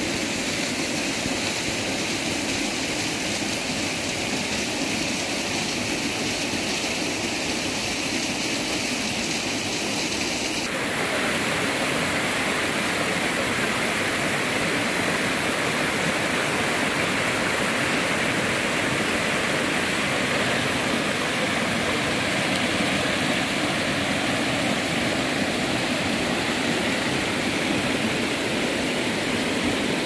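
Mountain stream water rushing steadily. About ten seconds in the sound shifts abruptly to a slightly louder, brighter rush.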